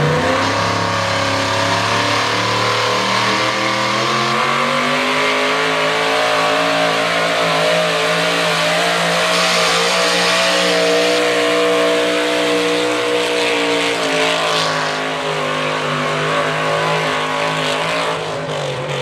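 A 4x4 pickup's engine running at high revs under heavy load while pulling a weight-transfer sled. It holds a steady high pitch with small swells, then the revs fall away near the end as the pull finishes.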